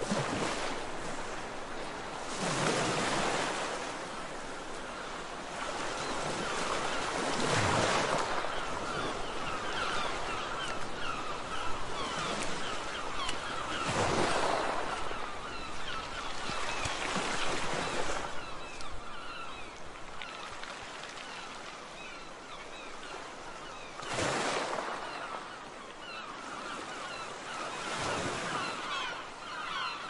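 Sea waves breaking and washing in, surging every four to six seconds. From about a quarter of the way in, many faint seagull calls chatter in the background.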